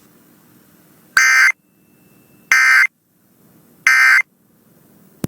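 Emergency Alert System end-of-message data tones: three short bursts of warbling digital data a little over a second apart, signalling the end of the alert. A sharp click comes near the end.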